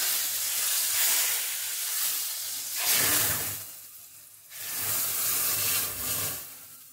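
Hot desi ghee tadka with asafoetida and red chillies poured into a pot of cooked dal, sizzling hard. The sizzle eases off about four seconds in, comes up again, and dies away near the end.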